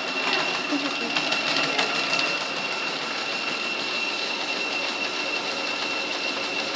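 Image treadmill running steadily, its motor giving a constant high whine over the hum of the moving belt, with a small dog's feet landing on the belt as it runs.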